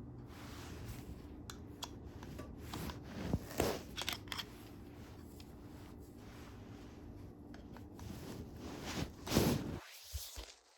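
Handling of tripod parts: scattered clicks, knocks and short plastic scrapes, loudest about three to four seconds in and again near the end, over a steady low hum that cuts off about ten seconds in.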